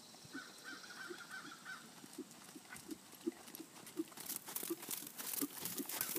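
A trotting horse's hooves beating on soft sand arena footing, a steady rhythm of muffled thuds about three a second. From about four seconds in the steps grow louder and sandier, with scattering grit, as the horse comes close.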